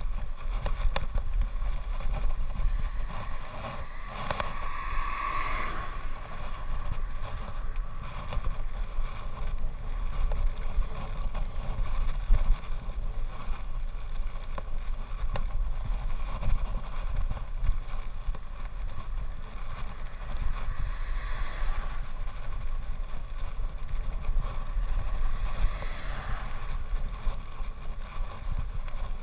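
Wind buffeting a bicycle-mounted camera's microphone while riding along a road, over a steady low rumble, swelling a few times.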